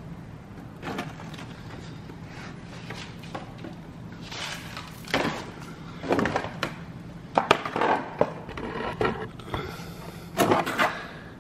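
Plastic lower fairing of a Honda CBR600RR being pulled off and handled: irregular knocks, clatters and scrapes of hard plastic.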